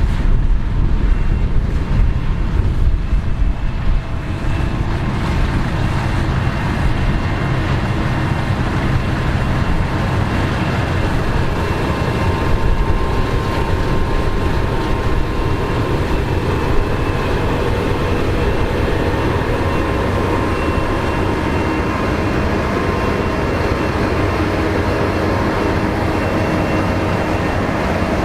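Combine harvester running steadily while cutting wheat: a continuous engine and machinery drone with faint steady whining tones, the low rumble heavier for the first few seconds.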